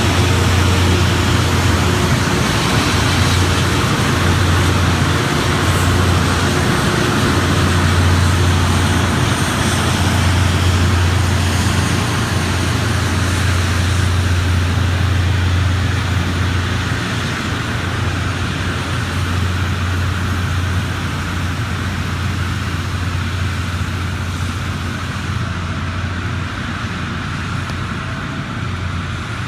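Loram rail grinder running along the track, its grinding stones giving a steady harsh hiss over a deep diesel drone. The sound slowly fades as the machine moves away.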